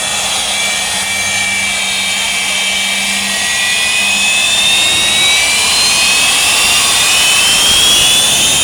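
Jet car's jet engine running with a loud roar and a high whine that climbs steadily in pitch, growing slightly louder over the stretch.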